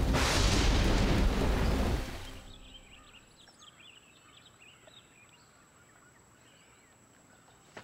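Heavy rain pouring with a deep thunder rumble, fading out after about two seconds; then faint, scattered birdsong chirps.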